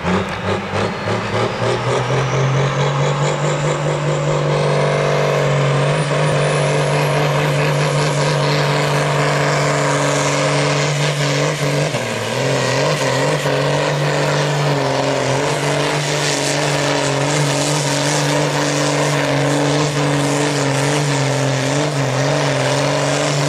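Ursus 1201 farm tractor's diesel engine under full load pulling a weight-transfer sled. It revs up over the first few seconds with a faint high whine rising above it, then holds a steady high pitch, dipping briefly about halfway through before picking up again.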